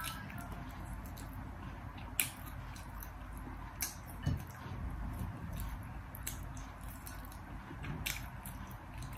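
Close-up eating with a metal fork: chewing, with a few sharp clicks about two, four and eight seconds in.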